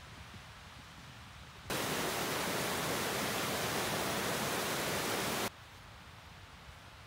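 A loud, steady, even hiss starts suddenly about two seconds in and cuts off just as suddenly nearly four seconds later, over a faint background.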